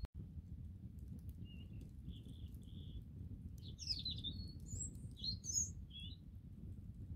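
Small birds singing: a few short chirps, then a quicker phrase of rising and falling notes. Under them runs a low steady rumble, with a few faint crackles from a campfire.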